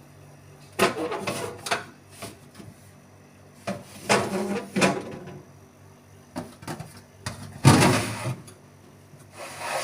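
The lower compartment of a Sanken two-door refrigerator being opened and handled: its door, shelves and drawers knock and rub in four short bouts over a low steady hum.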